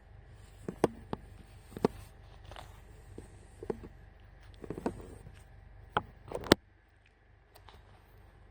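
Irregular light knocks and clicks, a dozen or so, the loudest about six and a half seconds in, over a steady low hum that stops just after that last knock.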